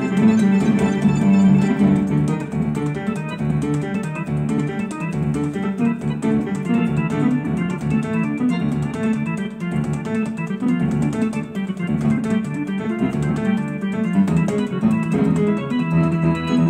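Electronic keyboard played through a harmony array key layout: busy, continuous music with many notes sounding together, the chords changing several times a second.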